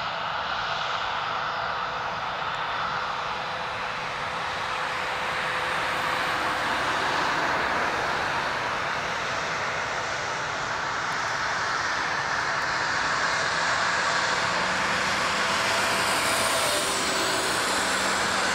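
Airbus A320-214's twin CFM56-5B turbofans on final approach at landing power with gear down: steady jet engine noise growing gradually louder as the airliner comes closer.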